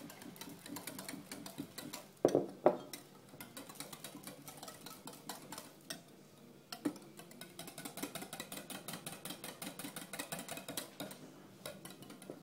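A wire whisk stirring liquid in a glass Pyrex measuring jug, its wires clinking rapidly and steadily against the glass. There are two louder knocks about two seconds in.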